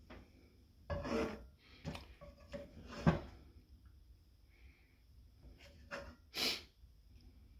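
A handful of short rubbing, scraping and knocking sounds, the sharpest a knock about three seconds in.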